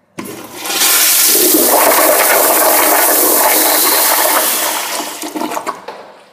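Crane Plumbing toilet giving a powerful flush: a sudden start, a loud rush of water for about four seconds, then tapering off as the bowl drains.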